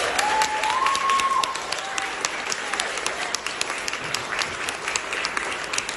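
Audience applauding, a dense patter of many hands clapping, with a few long cheering calls over it in the first second and a half.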